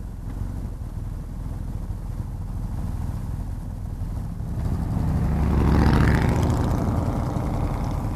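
Motorcycle engines running at low speed as the group slows to a near stop, the rider's own BMW R 1250 GS Adventure boxer twin among them. About five seconds in, a louder motorcycle engine swells, peaks around a second later and then eases off.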